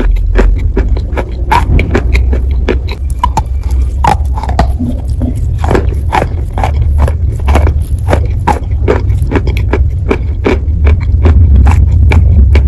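Close-miked biting and chewing of wet sawn chalk: many irregular crisp crunches in quick succession, over a steady low rumble.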